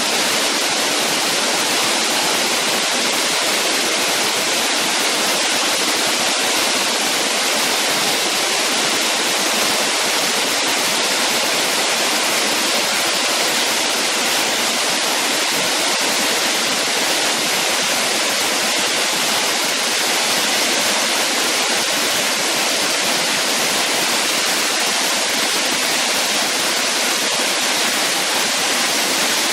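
Waterfall pouring steadily: an unbroken rush of falling water, mostly hiss with little deep rumble.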